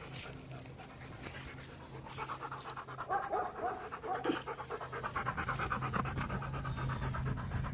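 Rottweiler panting: quick, rhythmic open-mouthed breaths that grow louder from about two seconds in.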